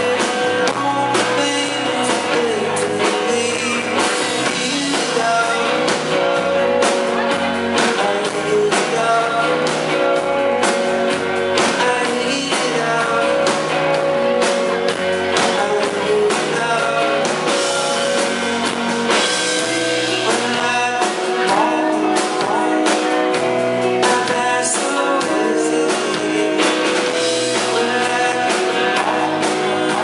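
Rock band playing live, with electric and acoustic guitars, a drum kit and a sung lead vocal, heard from the audience through the venue's PA.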